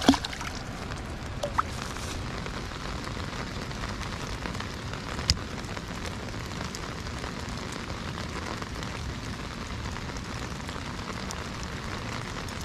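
Steady rain falling on lake water. Right at the start a released fish splashes back into the water, and a single sharp click comes about five seconds in.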